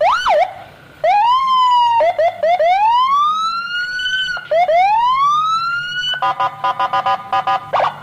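Toy police car's electronic siren: a quick chirp, then a series of rising wails, then a fast two-tone hi-lo yelp for about the last two seconds.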